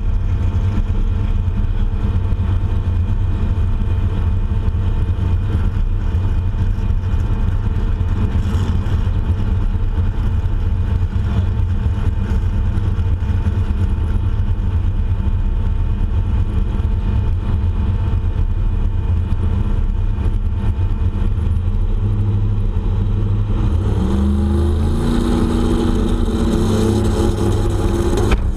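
Turbocharged 383 LT1 V8 idling steadily in the drag truck. About 24 seconds in, the engine note rises and holds higher for the last few seconds.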